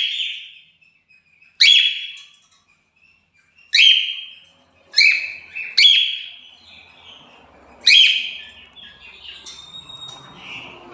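Cockatiels calling: six loud, sharp calls, one every one to two seconds, each starting high and settling onto a steady note. Softer chatter follows near the end.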